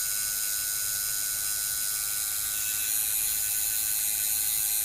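Coil tattoo machine with brass and iron coils buzzing steadily as it runs, needle working into the skin of an arm.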